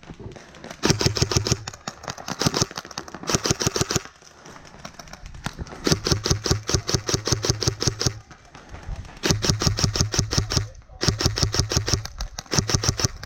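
Airsoft guns firing rapid full-auto bursts. There are about seven bursts of quick clicking shots with short pauses between them, and the longest lasts about two seconds.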